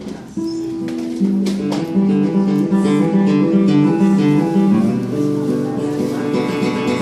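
Acoustic guitar played live: a picked melody of repeating notes begins about half a second in and grows fuller and louder over the next second or two.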